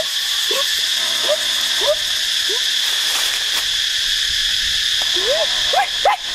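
A steady high-pitched insect drone, with short rising calls repeating about every half second that bunch together near the end.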